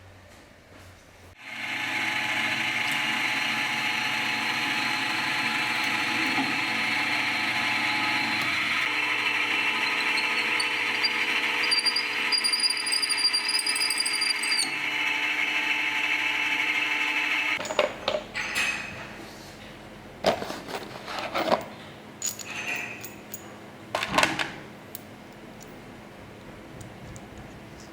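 A power tool runs steadily for about sixteen seconds, with a high squeal that rises in pitch partway through, then stops. Scattered knocks and clicks follow.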